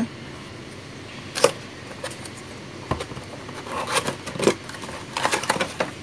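Cardboard box being handled and opened, with scattered rustles, scrapes and small knocks as the metal-cased pressure switch is lifted out. A sharp click comes about one and a half seconds in, and there are clusters of rustling near the end.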